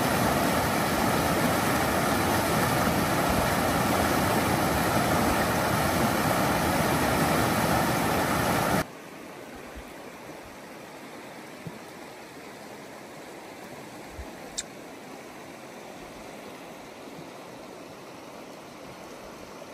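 River water rushing steadily over rapids. About nine seconds in it cuts suddenly to a much quieter rippling of shallow water running over rocks.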